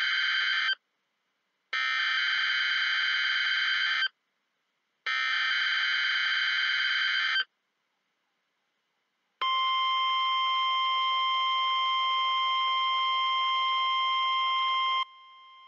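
Emergency Alert System signal on NOAA Weather Radio. It starts with the end of one harsh digital SAME header burst, followed by two more bursts of about two and a half seconds each with short gaps between them. After a pause of about two seconds comes the steady 1050 Hz warning alarm tone, lasting about five and a half seconds, which cuts off suddenly to a much fainter trace of the tone.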